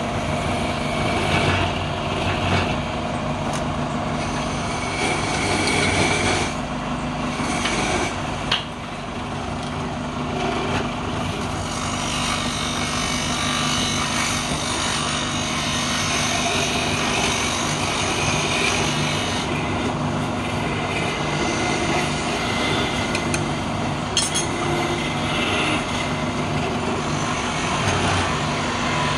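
Wood lathe running with a steady motor hum while a flat scraper cuts the spinning wooden spindle, giving a continuous scraping hiss with a few brief sharper scrapes.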